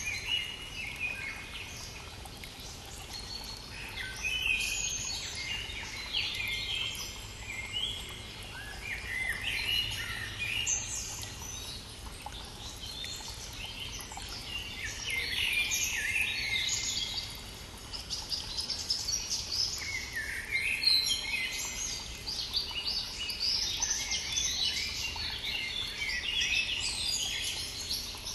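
A chorus of several songbirds singing in spring, many short chirping and trilling phrases overlapping one another, over the faint steady rush of a stream.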